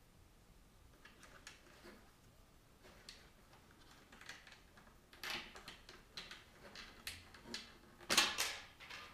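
Plastic clicking and scraping as a battery emulator, a mains adapter in a battery-shaped casing, is pushed into the battery bay of an Autel Evo II drone. The sounds are scattered and irregular, with a louder scrape about five seconds in and the loudest run of clicks and scraping about eight seconds in.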